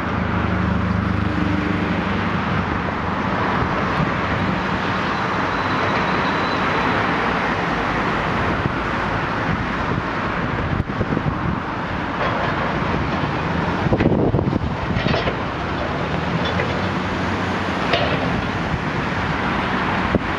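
High-reach demolition excavator's diesel engine running steadily as its long arm tears at a brick building, with crunches of falling brick and rubble a few times in the second half.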